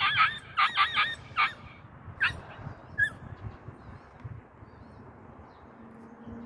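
Puppy giving a quick run of short, high-pitched yips in the first second and a half, then two more single yips about two and three seconds in.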